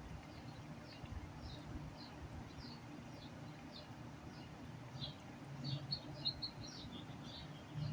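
Cat eating wet chicken paté: soft wet smacks and licks about twice a second, coming faster for a moment past the middle, over a low steady hum.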